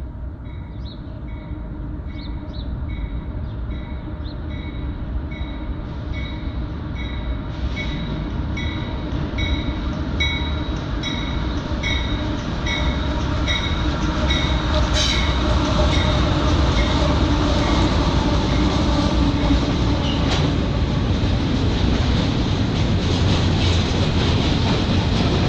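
CSX diesel freight train coming out of a tunnel and rolling past: a low rumble that grows louder as the locomotive emerges about halfway through, then the steady rumble and clatter of double-stack container cars. A bell dings a bit under twice a second through the first half, and there is one sharp clank shortly after the locomotive appears.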